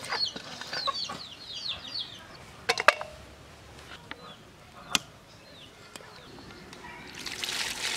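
Chicks peeping in quick falling chirps for the first two seconds or so, then a few sharp knocks, the loudest about three seconds in and another about five seconds in. Near the end, water starts pouring into the metal pot of dry fish pieces.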